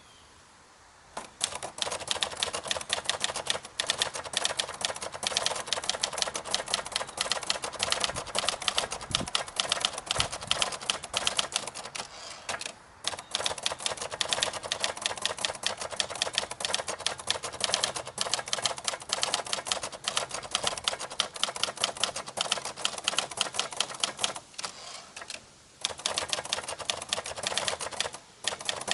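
A 1974 Escort 55 portable manual typewriter, an Olivetti Lettera 32 mechanism, being typed on in a fast, steady stream of sharp key and typebar strikes. The typing starts about a second in and pauses briefly three times.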